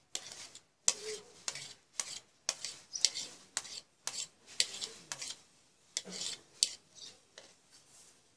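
A metal fork scraping and tapping against a plate, pushing chopped button mushrooms off it into a bowl: an irregular run of sharp clicks and short scrapes.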